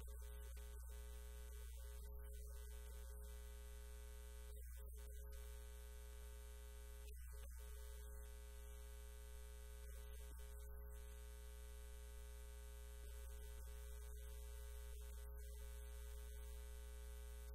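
Faint, steady electrical hum: a constant low drone with a few unchanging higher tones over it.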